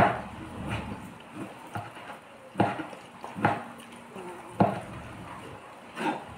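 A person slurping instant ramen noodles off a fork: about six short, sharp slurps roughly a second apart, with chewing between.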